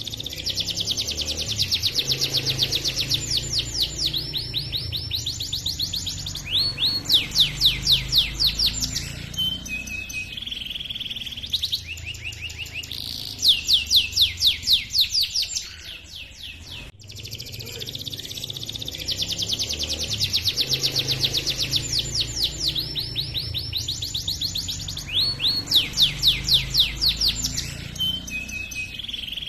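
Domestic canary singing a long, continuous rolling song (ngerol) of fast trills and rapidly repeated chirped notes. The same sequence of phrases starts over about halfway through, as a looped recording.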